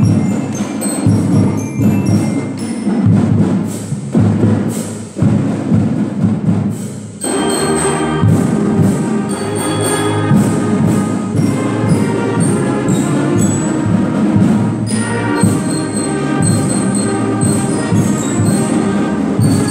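Student concert band of saxophones, clarinets and percussion playing a piece, with regular drum strokes under the wind parts. The band swells to fuller held chords about seven seconds in.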